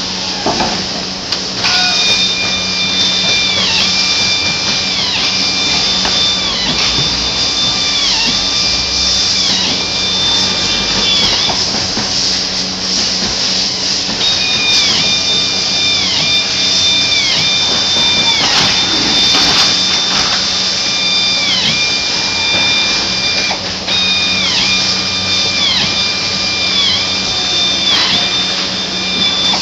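Handheld power drill whining in repeated runs, its pitch dipping for a moment about once a second. It stops for a few seconds near the middle. Under it runs steady assembly-line noise with a low hum.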